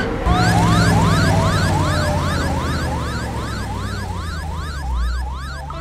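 Tow truck's emergency siren wailing up and down fast, about two and a half sweeps a second, over a low engine rumble; it stops just before the end.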